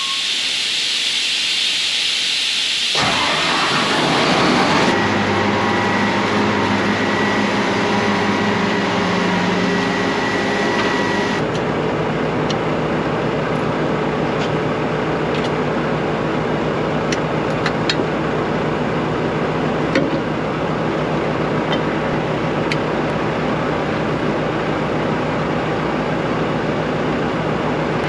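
Case IH 8250 combine's diesel engine running steadily. A hiss comes first, and the engine note sets in about three seconds in, its tone shifting about five and eleven seconds in.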